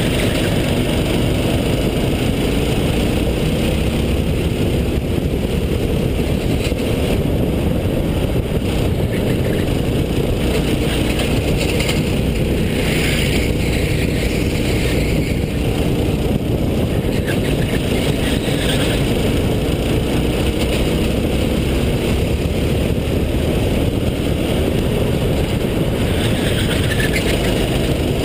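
Racing kart engine heard onboard, running at speed throughout, its pitch rising and falling as the kart slows for corners and accelerates out of them.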